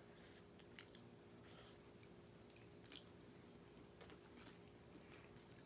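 Near silence: faint chewing as she eats hot microwaved corn or sweet potato, with a few small mouth clicks over a low steady hum.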